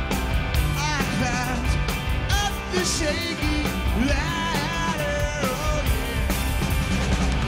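Live rock band playing: distorted electric guitars, bass and drums, with a male lead vocal singing over them from about a second in.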